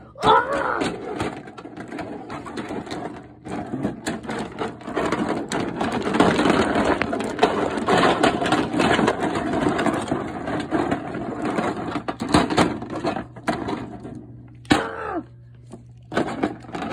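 Plastic action figures clattering and knocking together as they are pushed around a toy wrestling ring by hand, a busy run of clicks and rubbing that dies down briefly near the end.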